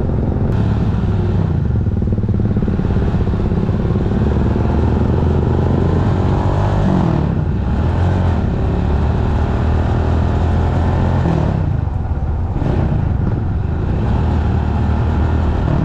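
Rusi Classic 250 motorcycle engine running under way, its pitch climbing and dropping back a few times as the rider accelerates and eases off.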